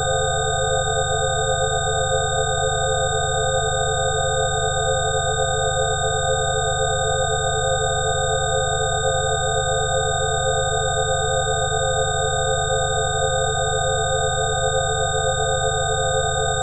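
Electronically generated pure tones, several high and low pitches held together without change, with a slight regular pulsing in the lower tones: a 'healing frequency' sound-therapy tone track.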